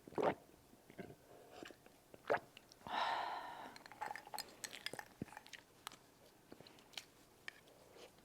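Close-miked chewing of soft strawberry cream cake, with scattered wet mouth clicks. A louder, breathy rushing sound lasts about half a second, around three seconds in.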